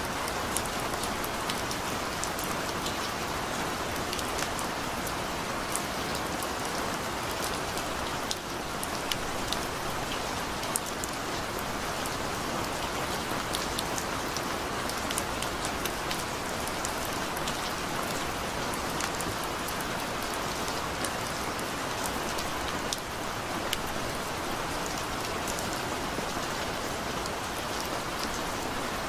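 Steady rain falling: an even hiss with many single drops ticking through it.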